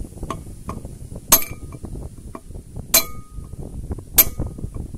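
Three sharp metal-on-metal clinks, each with a short ring, as a steel wheel stud knocks against a truck's wheel hub while it is being fitted, with a few fainter ticks between.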